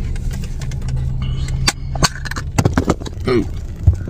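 A tightly sealed plastic dessert container being pried and wrestled open, giving a run of sharp plastic clicks, snaps and crackles over a steady low hum.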